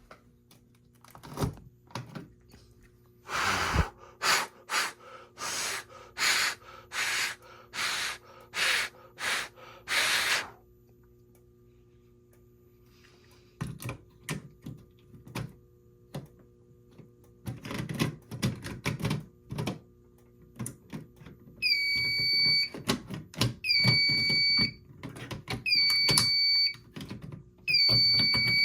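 About nine short hissing bursts in quick succession, then scattered clicks and knocks. About three-quarters of the way in, the demo fire alarm system goes into alarm: a high electronic tone repeats about once a second over low thumps.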